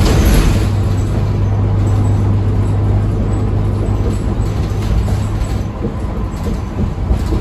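Diesel transit bus, a New Flyer XD40, heard from inside while driving: a loud road-and-engine roar with a steady low engine drone that drops away about six seconds in.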